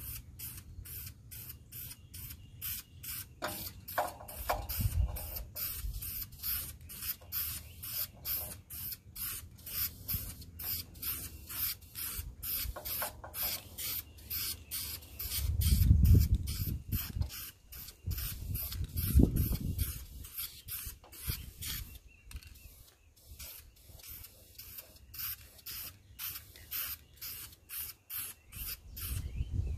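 Krylon Farm Implement aerosol spray-paint can spraying in short hissing bursts, about two a second. Two louder low rumbles come about halfway through.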